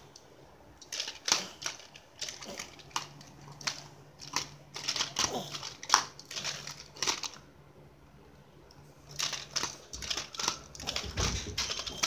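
Plastic toys and a crinkly plastic bag being handled on a bedspread: irregular rustling, crinkling and sharp clicks in scattered spells.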